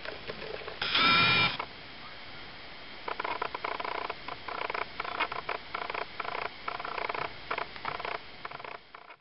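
Young kittens mewing: one loud, high mew about a second in, then from about three seconds in a quick run of short squeaky mews, several a second, until near the end.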